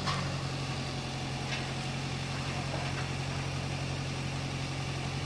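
Boom truck's diesel engine running at a steady idle, a constant low hum, while it holds a steel roof truss being set in place.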